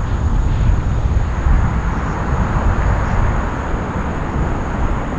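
Wind buffeting the microphone outdoors: a steady, gusty rumble with a hiss above it.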